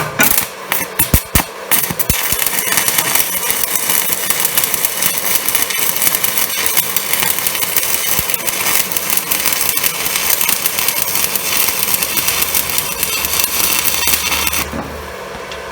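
Stick-welding arc of a UONI 13/55 basic-coated electrode running a bead on steel plate. A few sharp cracks as the arc strikes in the first two seconds, then a steady, even crackle from a stable weld pool. It cuts off abruptly near the end, leaving a low hum.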